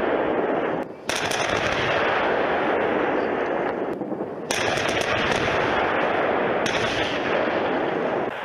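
Gunfire from tanks on a firing range: loud, dense and continuous, with two brief drops, about a second in and about four seconds in.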